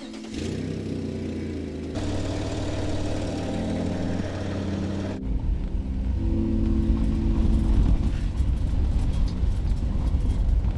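Jeep Wrangler driving on a gravel road, a steady engine and road rumble that turns heavier and lower about five seconds in, heard from inside the cab. Held background music chords run underneath.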